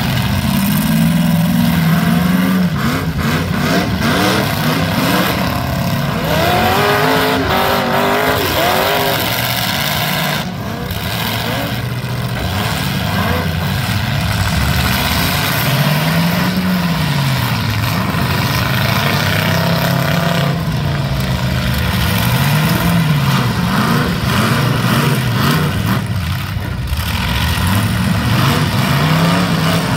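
Engines of full-size demolition derby cars running loud, revving up and falling back again and again, with the rough noise of several cars working at once.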